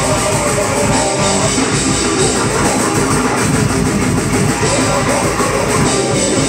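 Grindcore band playing live at full volume: heavily distorted electric guitar over fast drumming on a Pearl drum kit, with a constant wash of cymbals, a dense, unbroken wall of sound.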